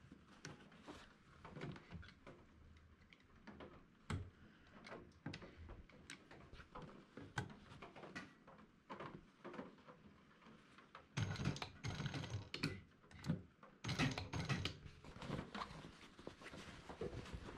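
Canvas and a metal zipper rustled and shifted under an industrial sewing machine's presser foot, with scattered clicks, then two short runs of rapid stitching about two-thirds of the way through.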